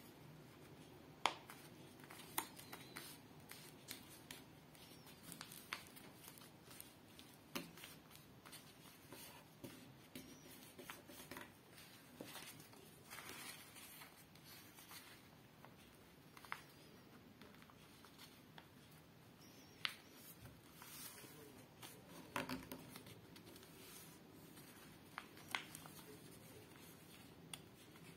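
Faint handling of a sheet of paper being folded by hand: soft rustling with many small crisp ticks as the folds are pressed and creased.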